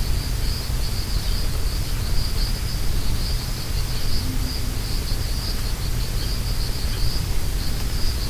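Chorus of autumn insects: a steady, finely pulsing high trill that never lets up, over a steady low rumble.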